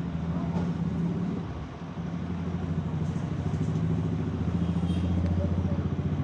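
A steady low mechanical hum with a fast throb, like an idling engine, dipping briefly about two seconds in.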